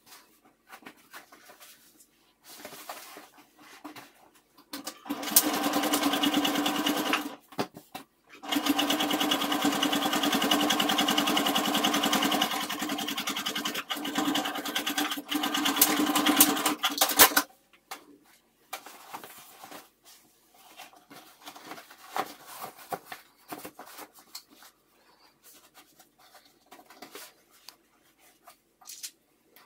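Electric sewing machine stitching a seam: a short run of about two seconds, a brief stop, then a longer steady run of about nine seconds. Faint rustling of the fabric being handled comes before and after the stitching.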